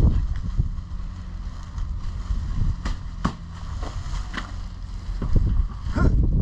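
Wind rumbling on the microphone, with two sharp clicks about three seconds in and heavier knocking and rustling near the end.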